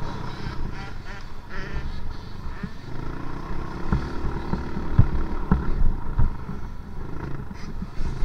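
Motocross dirt bike engine running and revving, heard from a camera on board, with repeated low knocks as the bike rides over the rough, churned dirt track.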